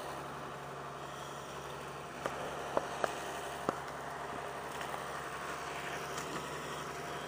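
An engine idling steadily, with a few short sharp clicks about two to four seconds in.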